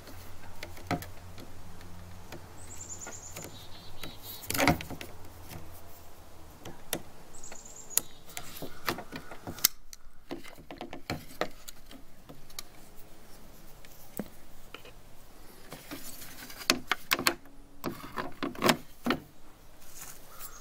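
Scattered clicks, taps and knocks of a Chevy truck's plastic exterior door handle and its lock cylinder and metal retaining clip being handled and pressed together, with a sharper knock about five seconds in and a run of clicks near the end.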